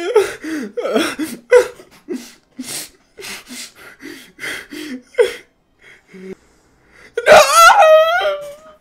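A young man sobbing: quick, gasping breaths in a rapid run, then near the end a loud, quavering wail.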